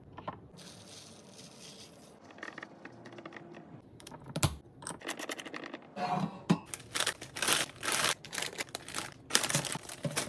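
Packaging being handled and torn open, crinkling and tearing in quick bursts that grow busier in the second half, with a single knock about four and a half seconds in.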